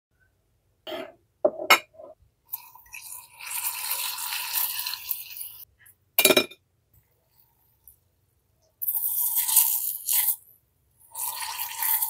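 Hardened tanghulu sugar syrup and a glass mug being handled: a few sharp clinks, then stretches of crackling, crunching noise as the brittle candy shell and sugar threads break and scrape.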